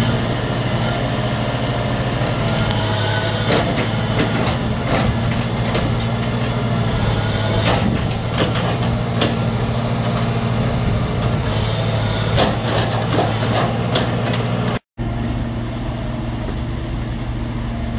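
Hydraulic excavator's diesel engine running steadily, with repeated knocks and cracks of brick rubble and timber being broken and shifted, most of them in the middle of the stretch.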